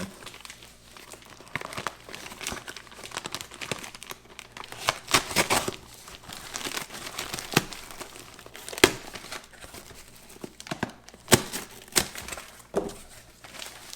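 Thick paper wrapping on a parcel being torn open and crumpled by hand: irregular crinkling with several sharper rips along the way.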